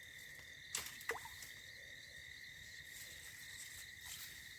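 Night insects chirring steadily in a high, even tone, with two brief sharp clicks about a second in.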